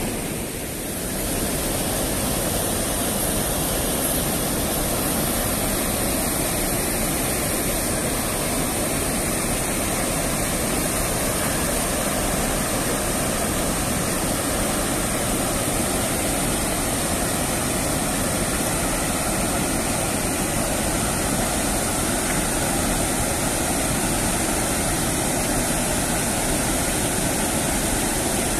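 Water pouring over a concrete river weir's spillway: a steady, even rush of falling water.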